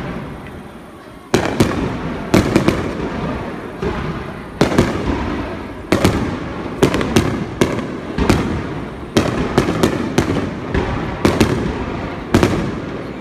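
Aerial fireworks bursting in quick succession during a display finale: sharp booms come one to three a second, with crackling and rumbling between them. There is a brief lull before the first bang, about a second in.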